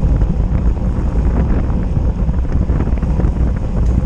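Steady, loud wind rumble buffeting the microphone of a camera on a road bike moving at speed.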